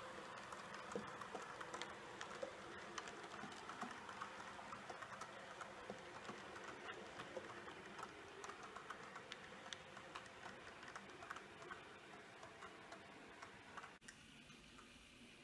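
H0-scale model train coaches rolling along the track: a faint rolling noise with many small irregular clicks from the wheels on the rails, slowly fading as the train passes. Near the end it drops away suddenly to quiet room tone.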